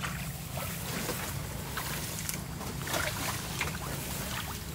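Water sloshing, with scattered small splashes, over a steady low rumble.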